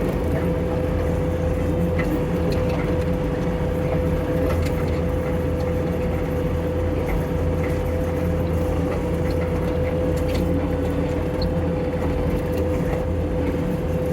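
Skid steer engine running steadily under way at low speed in turtle mode, a constant drone with a thin steady whine over it.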